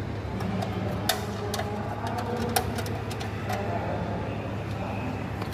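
Steady low electrical hum with a scattering of sharp clicks and taps, as of small parts and tools being handled during an axial fan installation.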